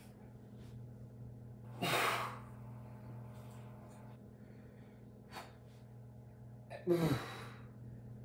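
A man's heavy, forceful breaths of effort during sit-ups: two loud gasping exhalations about five seconds apart, over a steady low hum.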